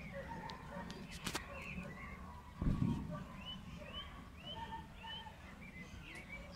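A bird chirping: a run of four or five short, arching chirps about half a second apart, over outdoor background noise. A low thump about two and a half seconds in is the loudest sound.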